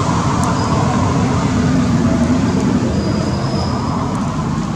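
Steady, loud low rumbling noise with no distinct events.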